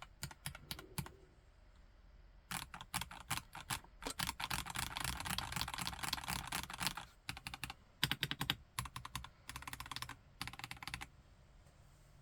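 Typing on a KLC Nori plastic-case mechanical keyboard with Gateron Yellow Pro V2 linear switches: bursts of quick keystrokes, with a long dense run of fast typing in the middle. The typing stops about a second before the end.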